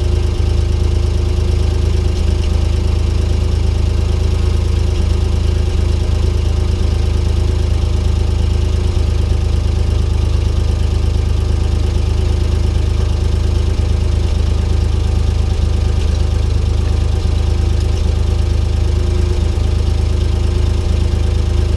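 Ford 4000 farm tractor engine running at a steady, unchanging speed.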